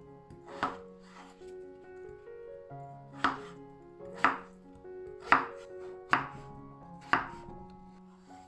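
Kitchen knife chopping on a cutting board: six separate sharp cuts, one alone and then five about a second apart, over steady background music.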